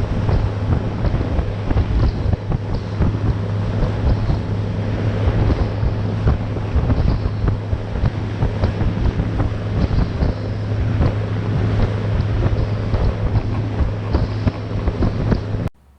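Outboard motor running steadily with a constant low hum as the aluminum bay boat moves across the water, with heavy wind buffeting the microphone and rushing water. The sound cuts off suddenly near the end.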